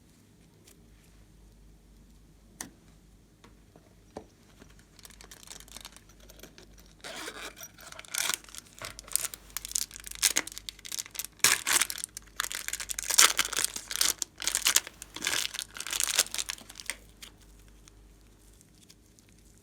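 Slime being squished and pulled by hand, making crackling, popping and tearing sounds. It starts with a few faint clicks, grows into dense loud crackling about five seconds in, and dies down near the end.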